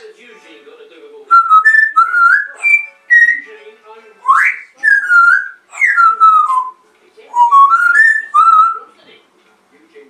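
African grey parrot whistling a run of clear notes that slide up and down in pitch, in short phrases with brief gaps, starting about a second in and stopping near the end.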